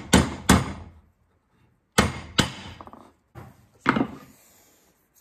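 Ball-peen hammer giving gentle taps to seat a new dust seal in a hydraulic cylinder's cap: two quick taps at the start, ending a steady run of taps. After a pause of about a second come three or four separate knocks on the workbench.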